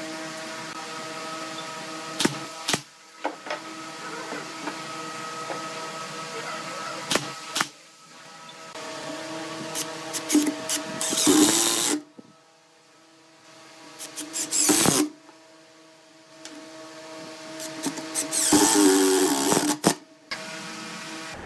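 Cordless drill driving screws into wooden crossbars in three short runs of a second or so, with sharp knocks of wood and tool being handled in between. A steady hum runs underneath.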